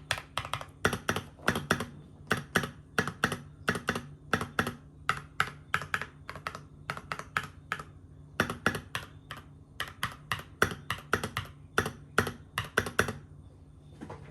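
Typing on a GMMK Pro mechanical keyboard with an aluminium plate, Cobalt switches and matt3o MT3 Bow keycaps: quick, uneven runs of keystrokes, several a second with short pauses. The typing stops about a second before the end.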